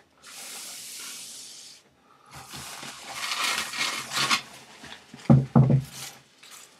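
A computer monitor in protective plastic sheeting being handled and turned on its stand: a steady hiss, then scratchy rubbing and rustling, then two loud thumps about five seconds in.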